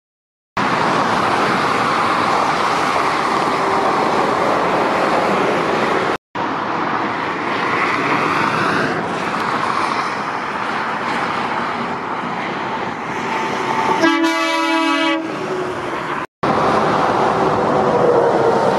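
Heavy lorries driving past on a motorway: steady engine and tyre noise from passing traffic. About 14 seconds in, an air horn sounds one blast of about a second.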